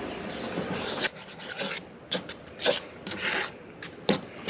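A hand mixing sticky Bisquick dumpling dough in a metal bowl. Steady rubbing and squishing for about the first second, then scattered sharp scrapes and knocks against the bowl.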